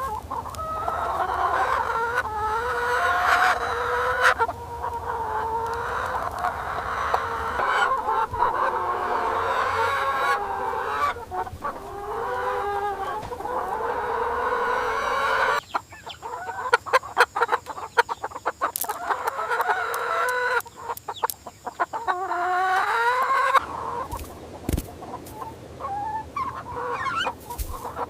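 A flock of chickens clucking and calling, many birds overlapping. About halfway through, a run of sharp clicks and taps comes in among the calls and lasts several seconds.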